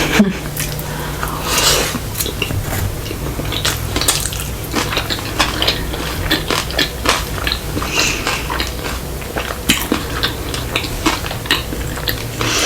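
Close-miked eating of sushi rolls: chewing and biting with many short clicks, and clinks of utensils against a plate, over a steady low hum.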